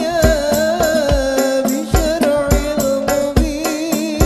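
Hadroh music: a lead voice singing a sholawat melody over rebana frame drums and a deep bass drum keeping a steady beat.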